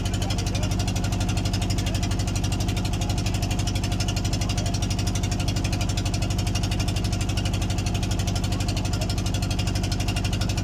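Boat engine running steadily, a constant low drone with a fast, even pulse.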